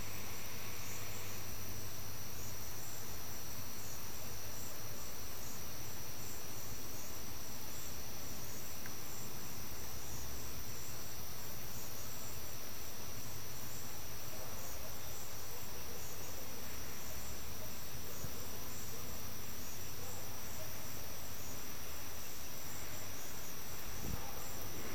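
A summer-night chorus of crickets and other insects: a steady high-pitched trill with a faster pulsing chirp above it, over a faint low hum of distant traffic.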